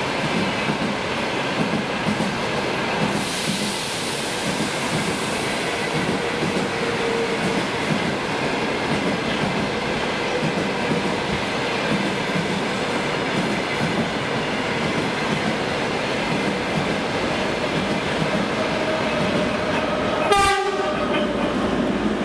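Passenger coaches of a long express train rolling past at speed, wheels clacking over the rail joints with a steady rumble. About twenty seconds in, a short locomotive horn blast, the loudest sound, as a 2M62U diesel locomotive comes up on the next track.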